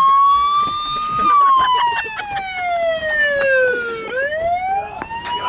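Police siren wailing: its pitch climbs for about a second, falls slowly for about three seconds, then climbs again near the end. Scattered short knocks are heard underneath.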